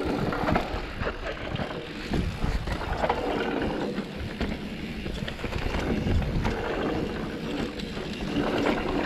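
Specialized Turbo Levo electric mountain bike rolling down a rough trail: steady tyre noise with many small knocks and rattles from the bike, and wind buffeting the microphone.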